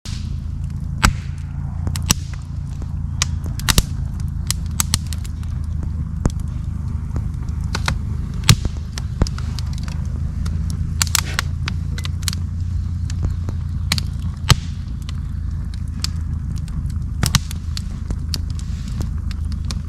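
A steady low rumble, as of a vehicle on the move, with many sharp clicks and pops scattered through it; the loudest pops come about eight and a half and fourteen and a half seconds in.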